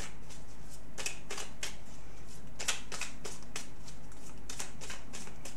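A deck of oracle cards being shuffled by hand: a string of short, crisp card flicks and taps at an irregular pace.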